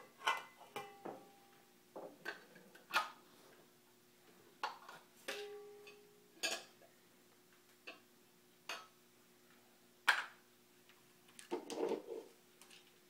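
A toddler knocking plastic cups, lids and bowls against each other and against a pot: irregular clacks and clinks, a few ringing briefly, the loudest about ten seconds in.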